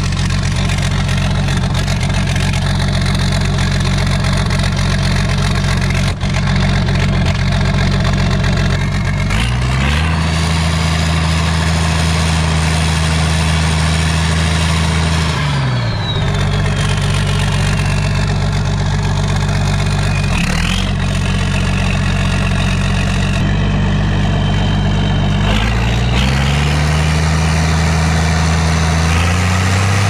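International Harvester 1420 combine's straight-piped diesel engine with an aftermarket turbo, running steadily, then revved up about ten seconds in and let back down about six seconds later. A high turbo whistle rises and falls with the revs. The engine dips once briefly, then revs up again near the end.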